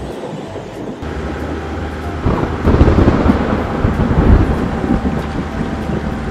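Low rumbling sound effect: a steady low hum sets in about a second in, swells into a louder rumble after about two seconds, and eases off again.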